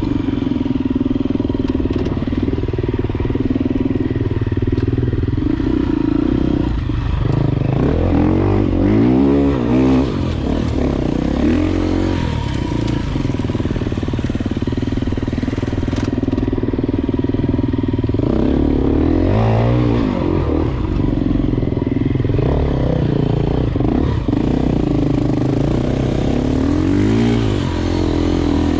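Enduro dirt bike engine running steadily under throttle on a trail. The revs rise and fall several times, with the pitch climbing and dropping in the middle and again near the end.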